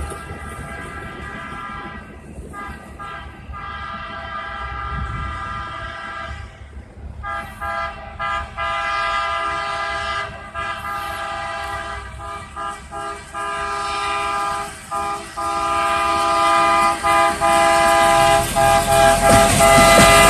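Multi-note railroad air horn sounding a chord in a long series of blasts broken by short gaps, growing louder as the rail vehicle approaches.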